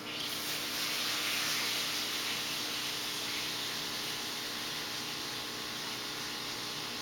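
Steady hiss of aquarium water and air bubbles, starting abruptly at the outset, over a faint low electrical hum.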